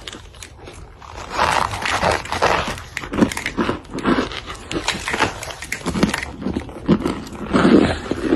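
Close-miked ASMR crunching and chewing of cornstarch chunks: dense runs of short crackly bites, fainter at first and loud from about a second in.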